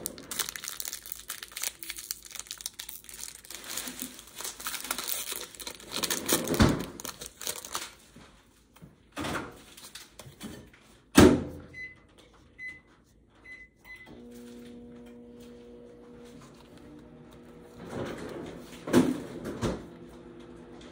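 Foil wrapper of a Pokémon trading-card booster pack crinkling and tearing open, with two sharp rips. Later, four short electronic beeps, then a steady low hum starts.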